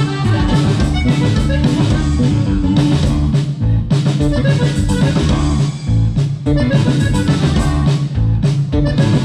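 Norteño band playing live on stage: accordion, bajo sexto, electric bass and drum kit together, with a steady beat.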